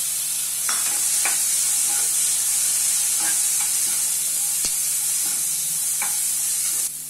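Black-eyed peas and onions frying in hot oil in a nonstick kadai, sizzling steadily while they are stirred, with a few light clicks and scrapes of the stirring utensil against the pan. The sizzle drops off just before the end.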